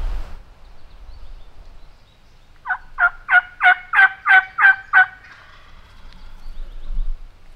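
Turkey yelping: a run of about eight evenly spaced two-note yelps, roughly three a second, lasting a little over two seconds.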